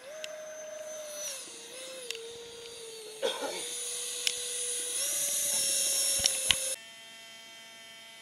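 Electric RC model airplane motor and propeller whining, its pitch stepping up and down as the throttle changes. It cuts off suddenly about seven seconds in, leaving a fainter steady hum.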